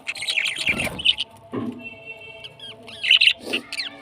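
Parrots chirping in a busy run of short, quick calls, with a brief held whistle about halfway through.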